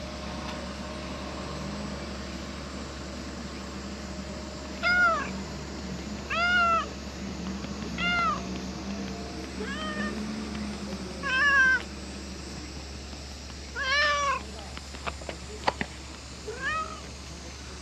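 A domestic cat meowing about seven times while being stroked: short meows that rise and fall in pitch, a second or two apart. A few sharp clicks come near the end.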